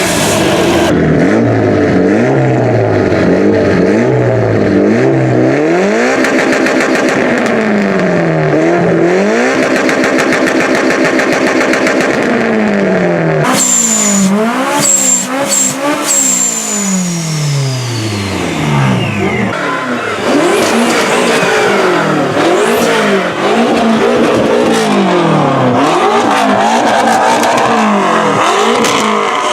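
Car engines revved hard again and again, each rev climbing and dropping in pitch, roughly one every second or two. About fourteen seconds in, a high whistle sounds and then slides slowly down in pitch.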